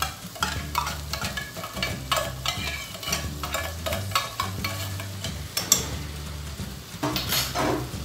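Metal spoon scraping canned tuna out of a tin can into a frying pan in a run of irregular scrapes and clicks, while the sautéed vegetables sizzle, over a low steady hum.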